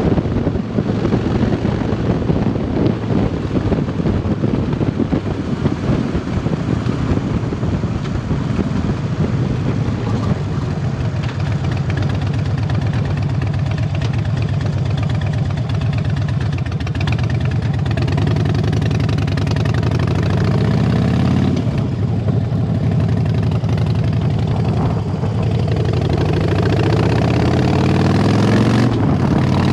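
2007 Harley-Davidson Dyna Super Glide Custom's 1584 cc air-cooled V-twin, through a Vance & Hines aftermarket exhaust, running under way with wind rushing over the microphone. Its pitch rises twice as the bike pulls, dropping back in between.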